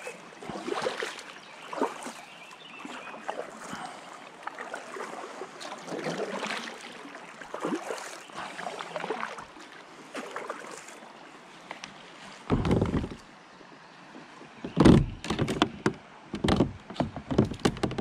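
Kayak paddle strokes dipping and splashing in the river, about one a second, then several loud knocks and bumps on the Jackson Cuda 14 kayak's plastic hull near the end as the paddle is set down.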